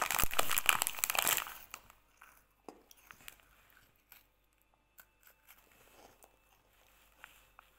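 A snack wrapper crinkling and rustling loudly for about a second and a half, then faint, scattered crunching as a snack is chewed.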